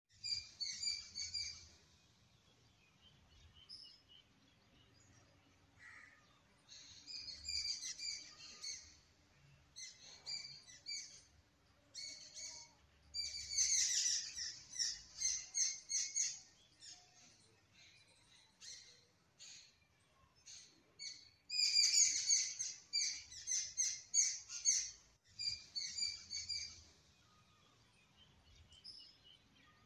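Birds chirping: bursts of quick, high notes repeated phrase after phrase, with short pauses between the bursts.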